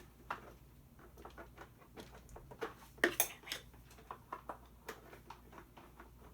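Small irregular clicks and scrapes of a screwdriver working tiny screws in a plastic toy's housing, with a louder click about three seconds in.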